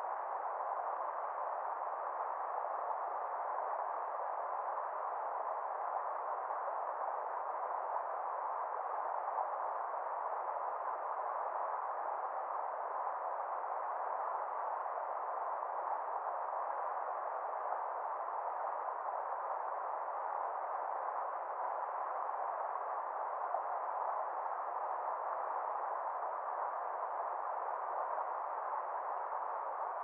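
Steady rushing noise of a fast-flowing river, muffled, with no highs or deep lows, and even throughout.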